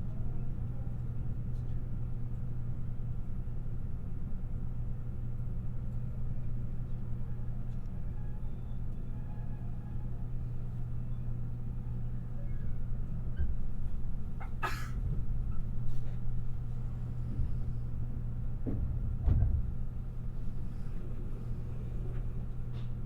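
Limited Express Shirasagi electric train running at speed, heard from inside the carriage: a steady low rumble and hum from wheels and running gear. A sharp click about fifteen seconds in and a heavier thump a few seconds later.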